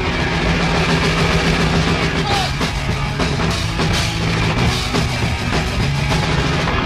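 Punk rock band playing live: drum kit, electric guitar and bass, in a raw live recording.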